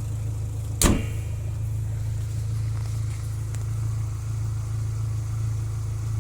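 Nissan Almera G15's Renault K4M 1.6-litre 16-valve four-cylinder petrol engine idling steadily, with the knock the owner says has disappeared. A single sharp bang about a second in.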